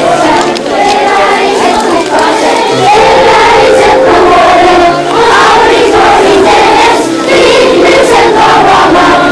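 A crowd of people singing together.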